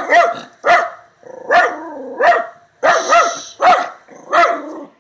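Miniature schnauzer barking repeatedly and fiercely, about seven sharp barks evenly spaced, roughly one every three-quarters of a second.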